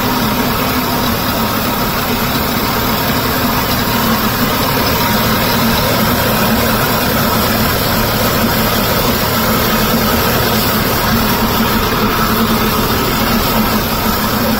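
Mercury outboard motor idling steadily with its lower unit in a drum of water, its exhaust churning the water. It is on a test run after its cooling water pump impeller was replaced, with the cooling-water stream spurting out.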